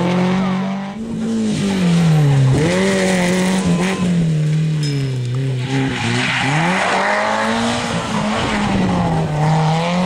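Rally car engines pulling hard on gravel, the engine note repeatedly dropping as the drivers lift off and climbing again as they accelerate away. Gravel and dust spray up from the tyres.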